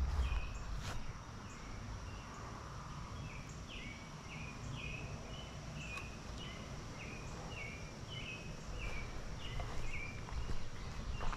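A songbird singing a long run of short, down-slurred whistled notes, about two a second, over low wind rumble and a faint steady high insect tone.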